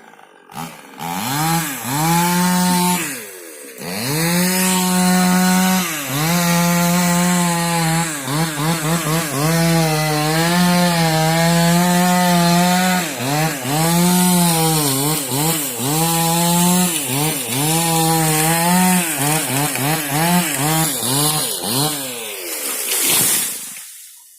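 Two-stroke chainsaw cutting wood for about twenty seconds, its engine pitch repeatedly dipping and rising as it works through the cut. It revs up about a second in, drops off briefly around three seconds, and winds down near the end.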